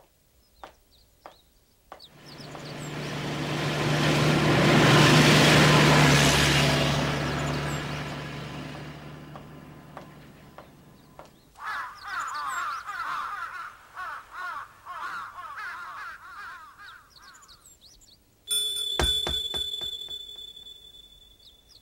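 Film sound effects: a long rushing swell with a low hum that builds and fades, then several seconds of warbling bird chirps, then a sudden high ringing tone with sharp clicks that dies away.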